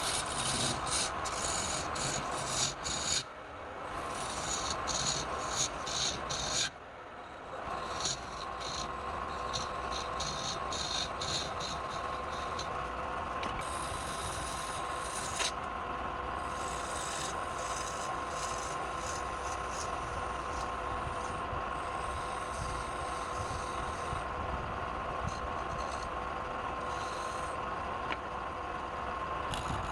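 Wood lathe running with a steady whine while a tool rubs and scrapes against the spinning wood in quick, repeated strokes. The sound dips briefly twice in the first several seconds.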